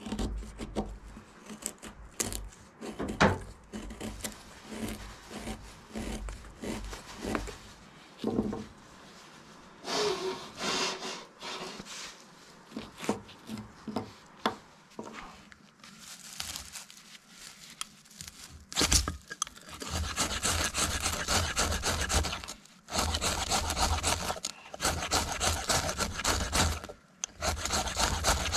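Cold Steel Pocket Bushman folding knife's blade cutting and scraping wood: short separate strokes at first, then quicker, continuous rasping strokes through the second half.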